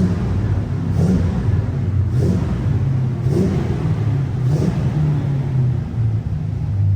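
1967 Pontiac Firebird's 400 cubic inch V8 running steadily while the car is driven, a deep rumble throughout.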